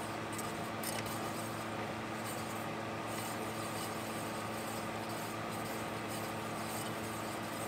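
A steady low mechanical hum made of several fixed tones, with a few faint clicks about a second and three seconds in.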